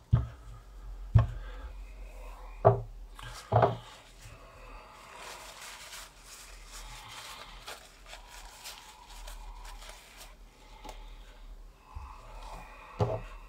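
A heavy steel-cased neodymium fishing magnet handled on a desk. There are four sharp knocks in the first four seconds and one more near the end, with rubbing and rustling against paper towels in between.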